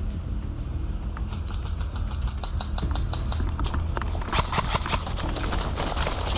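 Footsteps and rustling of brush and gear as someone moves through undergrowth, a quick run of small knocks and crackles that gets busier and louder about four seconds in, over a steady low rumble.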